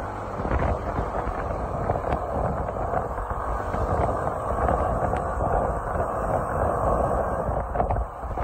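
Wind buffeting the microphone on a moving motor scooter, with the scooter's engine and road noise running steadily underneath.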